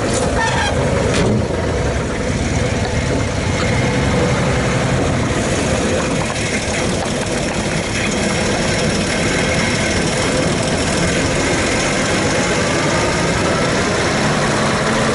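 1933 Chevrolet truck's 194-cubic-inch inline-six running steadily as the truck drives slowly along, with a few clicks about a second in.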